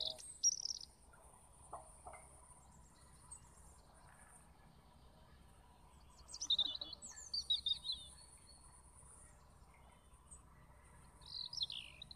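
A bird chirping in short bursts of quick, high notes, busiest a little past the middle, over a steady high insect trill that comes and goes.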